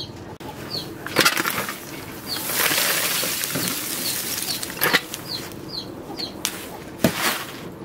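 Lumps of charcoal poured onto a blacksmith's forge bed, a dry rattling rush lasting about two and a half seconds through the middle, with sharp knocks about a second in and near the end.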